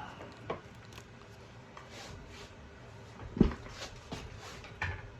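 Small clicks and knocks of tools and parts being handled on a workbench, with one louder thump about three and a half seconds in.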